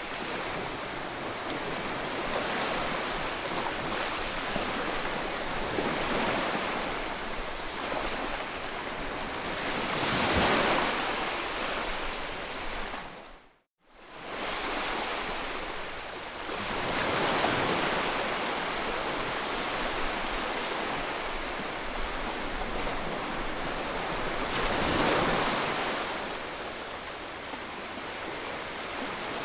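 Sea waves breaking on a shore: a steady wash of surf with three louder surges as waves break. About halfway through, the sound dips briefly to silence, then comes back.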